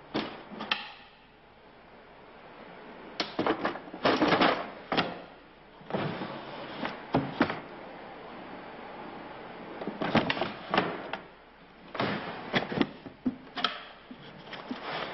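Several bursts of handling noise: objects being slid, rubbed and knocked, with sharp clicks, in separate clusters a few seconds apart.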